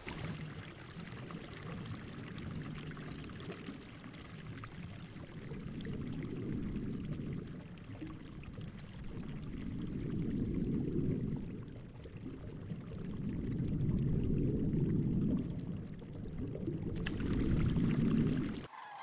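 Low, muffled rush of churning water from a mass of fish thrashing in shallow muddy water, swelling and fading every few seconds. A brighter splashing hiss joins in near the end, and the sound cuts off just before the end.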